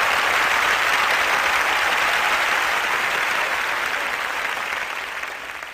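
Large audience applauding, a dense, steady clapping that thins out and fades over the last couple of seconds.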